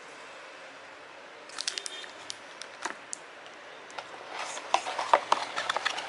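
Hands handling packaging: a faint steady hiss, then scattered crinkles and clicks from about a second and a half in, growing denser and louder near the end.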